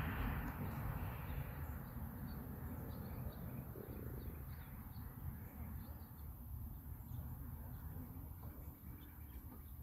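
Faint outdoor ambience: small birds chirping in short, repeated calls over a low rumble of wind on the microphone.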